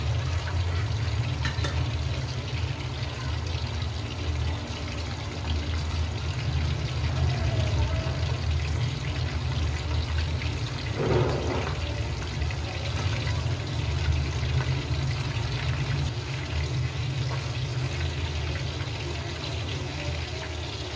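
Breaded chicken tenders deep-frying in hot oil in a steel kadai, a steady bubbling sizzle.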